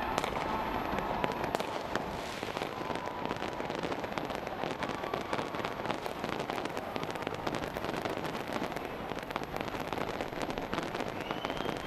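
Fireworks display going off continuously: a dense, unbroken crackle of many small pops and bangs over a steady hiss.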